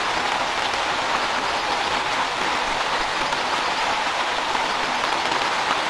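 Steady rain falling: an even, unbroken hiss with no single drops or knocks standing out.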